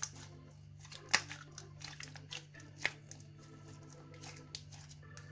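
Glossy no-glue paint slime squeezed and kneaded in the hands, giving wet clicks and pops. The loudest come about a second in and near three seconds, with smaller ones between.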